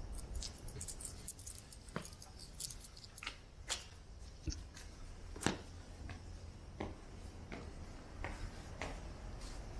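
Footsteps on stone paving: sharp clicks every half second to second, with a low steady rumble underneath.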